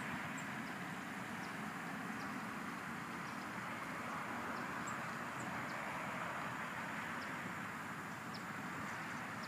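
Steady background noise, a low rumble and hiss with no distinct source, with faint, short high chirps scattered through it.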